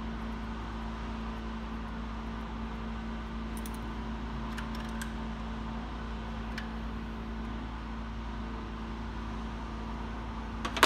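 A steady mechanical hum, with a few faint metallic clicks from a screwdriver and wrench working a valve rocker-arm adjuster during a valve-clearance adjustment. A single sharp click comes near the end.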